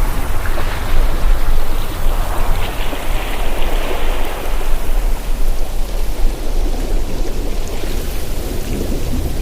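Ocean surf with wind: a continuous rushing wash that swells a second or two in, ebbs past the middle and builds again near the end, over a low rumble.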